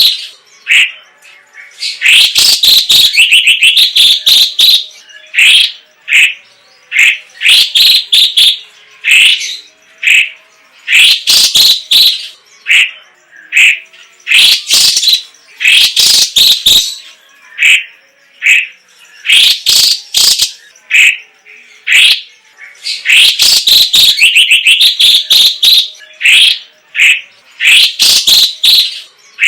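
Orange-bellied leafbird (cucak ijo cungkok) singing loudly and continuously: phrases of rapid, varied whistled and chattering notes, each lasting a second or two, coming one after another with brief pauses.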